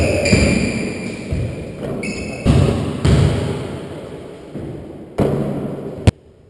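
A basketball bouncing on a hardwood court floor, each irregular thud echoing off the bare walls of the enclosed racquetball court, with a few short high squeaks in the first couple of seconds. Near the end the sound cuts off abruptly.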